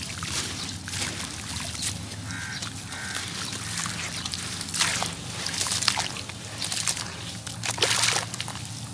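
Wet sand-cement crumbling and being swished by hand in a basin of water: gritty crumbling, sloshing and squelching, with several louder swishes in the second half.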